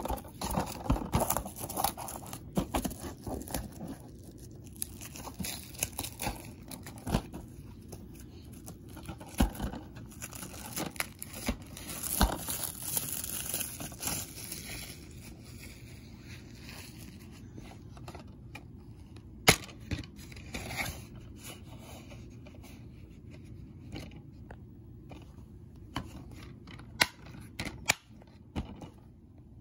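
Cellophane shrink-wrap being torn and peeled off a plastic DVD case: irregular crinkling and crackling with sharp clicks as the case is handled. The crinkling is busiest over the first half and thins to occasional clicks later.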